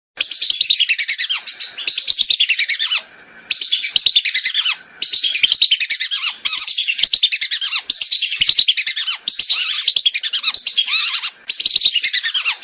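Whistling duck (belibis) calls on a bird-lure recording: dense runs of quick, high twittering whistles, loud and repeated phrase after phrase, with brief breaks about three seconds in, about five seconds in and near the end.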